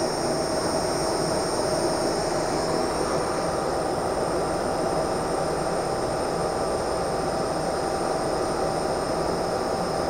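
1.5 kW microwave air-plasma torch running at full power with 12 litres per minute of air: a steady rushing noise with a few constant high whines over it.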